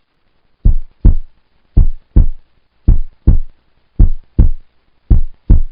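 Heartbeat sound effect: five double thumps (lub-dub), about one pair a second, evenly paced.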